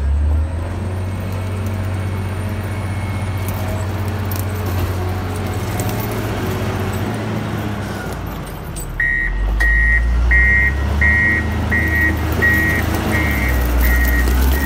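Komatsu GD675 motor grader's diesel engine running steadily. About nine seconds in, its reversing alarm starts, beeping evenly about once every two-thirds of a second.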